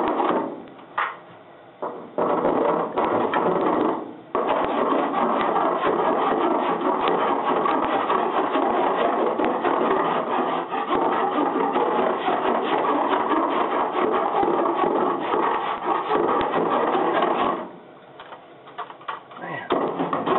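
Hand file rasping across body solder on a car body seam, a steady run of scraping strokes. The solder is harder than lead and files hard. The filing breaks off briefly near the start, again around four seconds in, and for about two seconds near the end.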